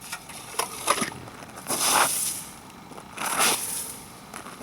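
Crunching in ice and snow: a few short clicks, then two longer crunches about a second and a half apart.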